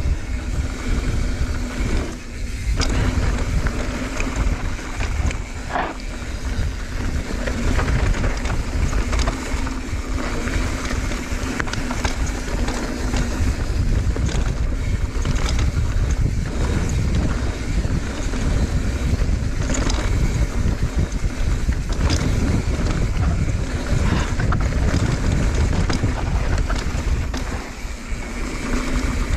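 Wind buffeting the microphone during a fast mountain-bike descent, with tyres rumbling and the bike rattling over a rough dirt trail in many small knocks.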